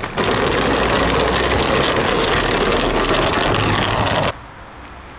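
A vehicle engine running close by, loud and steady, cutting off suddenly a little past four seconds in.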